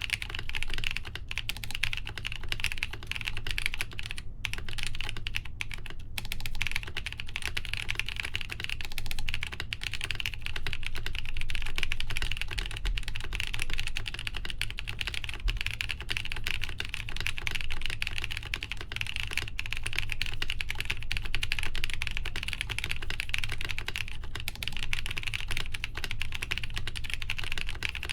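Continuous typing on a Lin Design Studio BOX 75 mechanical keyboard fitted with lubed Gazzew U4T tactile switches, a full polycarbonate plate and Cherry PBT keycaps, with no plate or case foam. The keystrokes run steadily, with a few brief pauses a few seconds in.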